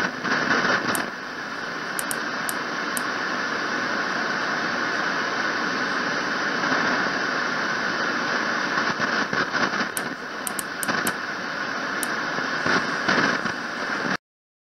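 Shortwave radio receiver audio from the Twente WebSDR tuned to 5.5 MHz: a steady hiss of static broken by sudden crashes from distant lightning strikes, bunched near the start and again from about ten seconds in. The audio cuts off suddenly just before the end.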